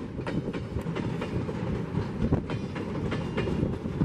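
Empty freight flatcars rolling past close by: a steady rumble of wheels on rail, with sharp clacks a few times a second as the wheels cross rail joints.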